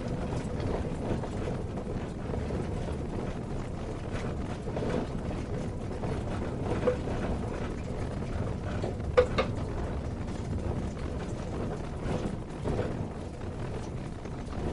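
Car driving over a rough unpaved road, heard from inside the cabin: a steady rumble of road noise with rattling, and two sharp knocks, one about seven seconds in and a louder one about nine seconds in.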